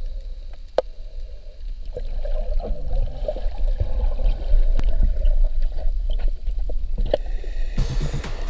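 Underwater water noise picked up by an action camera in its waterproof housing during a snorkel dive: a steady low rumble and sloshing, with scattered sharp clicks. Music begins near the end.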